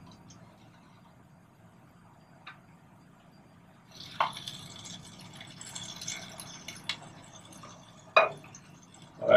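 Sandwich toasting in a hot pan on a propane stove. A few seconds in, a crackly sizzle starts, broken by several sharp clinks of the metal spatula and pans, the loudest near the end.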